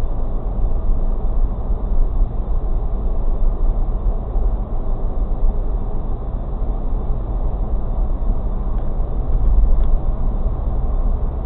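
Steady road and engine rumble inside a moving car's cabin, picked up by a dash cam's built-in microphone, so it sounds dull with no treble.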